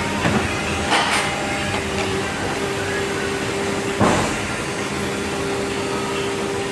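Toy car part making machine running with a steady hum, broken by two sudden loud bursts about three seconds apart.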